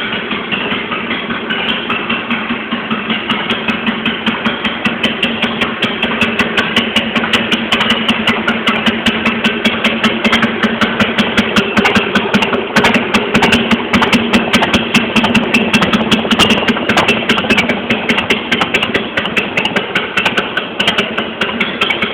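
Carbureted 2004 Harley-Davidson Sportster 883 Custom's 883 cc air-cooled V-twin idling through aftermarket Torbal exhaust pipes, a steady, loud, pulsing exhaust note.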